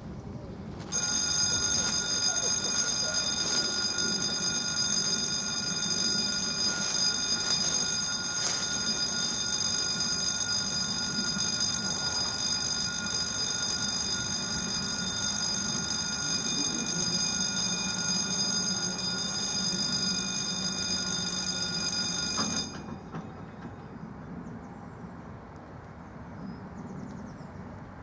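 Level-crossing warning bell ringing steadily as the crossing activates. It starts about a second in and cuts off suddenly after about 22 seconds, once the barriers are down.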